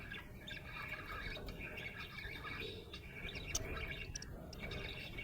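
Budgerigar chirping and warbling continuously, a busy chatter of short high notes with a few sharp clicks.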